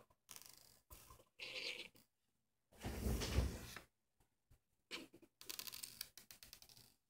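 Handling noise from a small plastic drone camera module being turned over and set on a hard tabletop: short scrapes and rustles, one louder bump a little after the middle, then a run of quick light clicks and scratches near the end.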